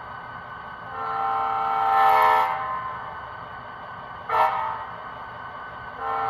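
Model diesel horn from the sound decoder in a Bachmann HO-scale GP35, playing the grade-crossing signal through the locomotive's small speaker: a long blast, a short one about four seconds in, and the start of the final long blast near the end.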